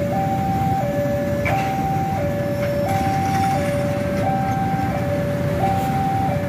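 Railway level crossing warning alarm sounding a steady two-tone alternation, a higher and a lower tone taking turns about every 0.7 s, over the low rumble of fuel tank wagons rolling past.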